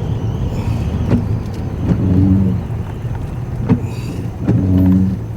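Road and engine noise of a moving car, heard from inside. A low hum swells about every two and a half seconds, and a few sharp knocks sound on top.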